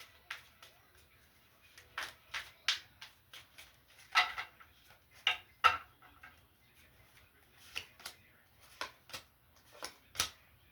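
Tarot cards being handled and laid down on a table: a string of irregular short slaps and flicks, some louder than others.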